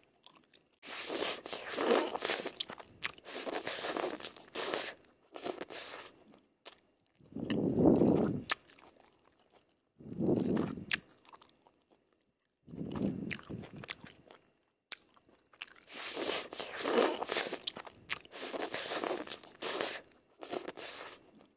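Close-miked chewing of stir-fried yellow noodles: wet mouth sounds in irregular bursts with short pauses between them, with two longer busy stretches, one early and one near the end.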